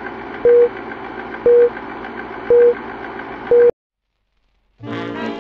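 Film countdown leader sound effect: a steady, faintly ticking projector-style whirr with a short low beep once a second, four times. It cuts off suddenly, and after a second of silence brassy swing-style music begins near the end.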